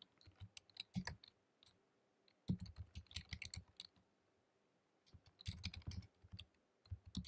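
Typing on a computer keyboard: short runs of fast key clicks with brief pauses between them.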